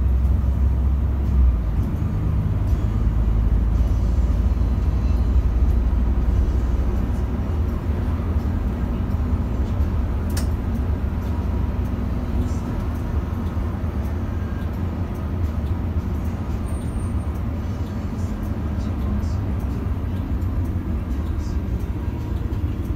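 Solaris Urbino 15 city bus heard from inside its cabin while driving: a steady low engine and road rumble. A single sharp click comes about ten seconds in.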